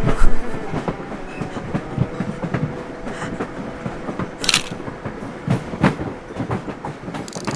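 Passenger train running, with wheels knocking irregularly over the rails under a steady rumble. There is a short hiss about halfway through.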